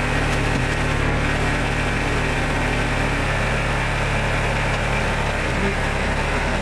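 Compact farm tractor's engine running steadily while its front loader raises the empty bucket.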